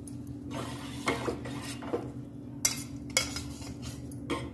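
A spoon stirring and scraping in a steel pot of hot milk as ground soaked rice is mixed in, with a few sharp metal clinks against the pot.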